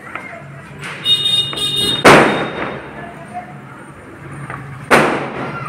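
Two loud firecracker bangs about three seconds apart, each fading away over a moment. A high-pitched tone sounds for about a second just before the first bang.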